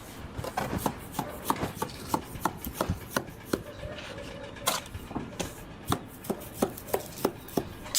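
A long series of sharp taps or knocks, about two or three a second, somewhat unevenly spaced, like repeated hand-tool strikes.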